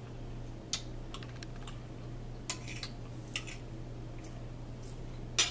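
Eating at the table: scattered light clicks and taps of a metal fork against a plastic bowl and plate, with mouth sounds of eating, the loudest click near the end. A steady low hum runs underneath.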